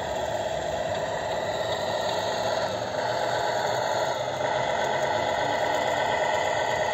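A 1/14 scale radio-controlled Scania R440 tractor unit running as it drives and manoeuvres, giving a steady mechanical engine-like running sound with some rattle.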